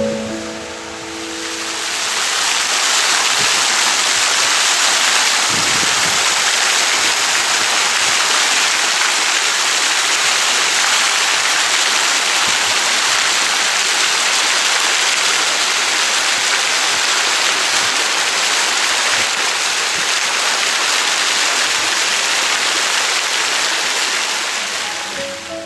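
Steady, even rush of running water, fading in over the first two seconds.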